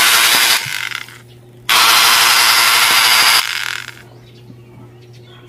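Bosch angle grinder motor, its rear cover off and brushes exposed, switched on in short bursts: a brief run, then one of about two seconds, each winding down after switch-off. It runs with heavy sparking at the carbon brushes and gives off smoke, which the owner takes for a failed armature.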